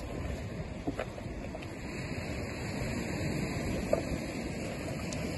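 Ocean surf washing on a rocky shore, with wind buffeting the microphone. Two light clicks come through, about a second in and near four seconds.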